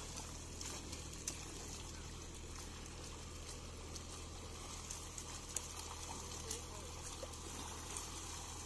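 Water trickling and splashing gently, with a few short sharp splashes or clicks, the sharpest about a second in and again past the middle, over a steady low hum.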